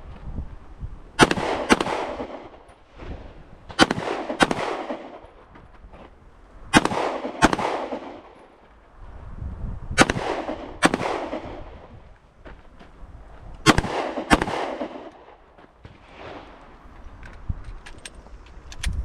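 Handgun shots fired in pairs, five quick two-shot strings about three seconds apart, each shot with an echoing tail; a few fainter shots near the end.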